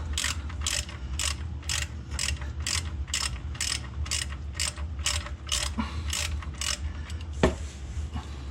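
Ratchet wrench clicking in quick, even strokes, about three a second, as it backs out a stubborn oil drain plug, with one sharper, louder clack about seven seconds in.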